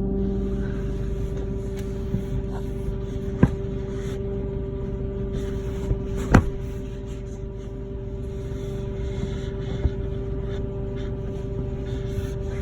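Loud, steady buzzing hum from under the rear seats of a parked Lexus GS F, one constant tone with overtones that does not change; a couple of short sharp clicks sound over it about three and a half and six and a half seconds in. The hum goes on after the car is parked: an unresolved fault in the car.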